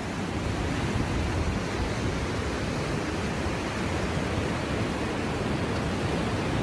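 A river in flood rushing past in a steady rush of water, a fast muddy torrent.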